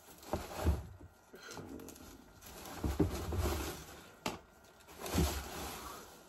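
Rummaging in a cardboard shipping box: plastic packing rustles as plastic powder tubs are lifted out, with three dull knocks and a sharp click.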